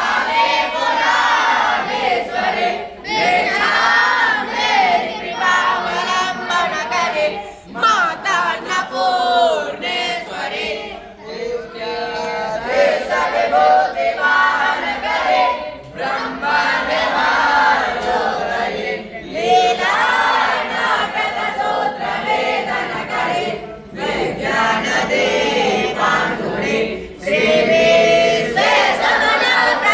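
A group of voices chanting together in unison, in phrases of a few seconds broken by short pauses.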